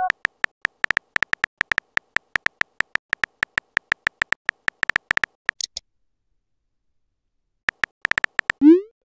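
Phone keyboard typing sounds from a texting app: a fast run of tap clicks for about five seconds, a brief high blip, then a gap of silence. A few more taps follow, and near the end a short rising swoosh of a message being sent.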